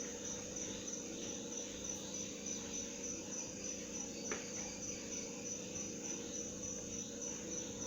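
Crickets chirping in a steady, pulsing high trill, with a faint steady hum beneath and one small click about four seconds in.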